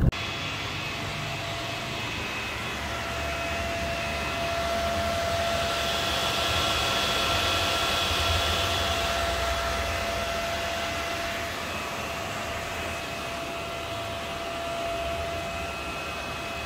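A steady whooshing, fan-like drone with a constant whine over it, swelling a little in the middle and again near the end.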